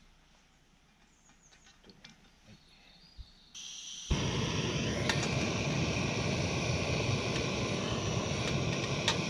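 Small gas canister camping stove being lit: gas begins hissing about three and a half seconds in, the burner catches with a sudden onset about half a second later, and it then runs steadily and loudly under the pan. Light handling clatter comes before it.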